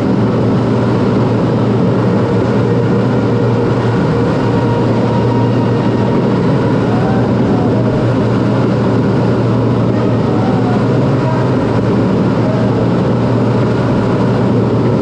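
Steady cockpit noise of a CT-114 Tutor jet in flight: its single turbojet engine and the air rushing past the canopy make a constant loud rumble with a strong low hum that does not change.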